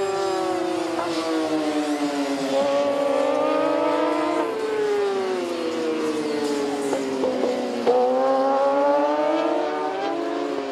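Racing sport motorcycle engines at high revs. The pitch rises and falls as the riders accelerate and brake through corners, with a sudden jump up about eight seconds in.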